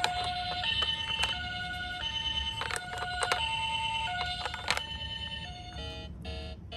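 A toy ambulance's electronic two-tone siren sounding the high-low "pii-poo" pattern, switching pitch about every two-thirds of a second, with a few sharp clicks. Near the end the siren fades and a different electronic tune of short notes begins.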